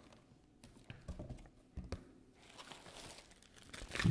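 Plastic bubble wrap rustling and crinkling as it is handled and pulled out of a cardboard box, with a few small knocks, ending in a thump just before the end.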